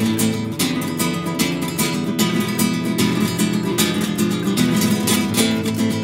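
Background music: a quick, steadily strummed acoustic guitar.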